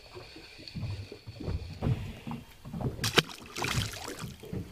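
Knocks and handling sounds in a small fishing boat, with a sharp click and then a splash in the water about three seconds in.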